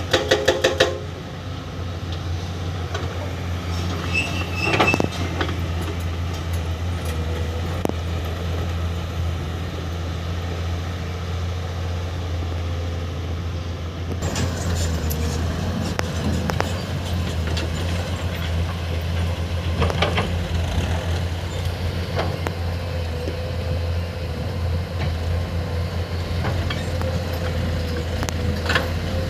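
Heavy diesel engine of a hydraulic excavator running steadily under working load, with a few metallic clanks and a brief high squeal.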